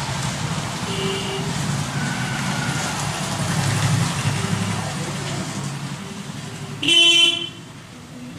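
Short horn honks over a steady low background rumble: a faint one about a second in and a loud one about seven seconds in.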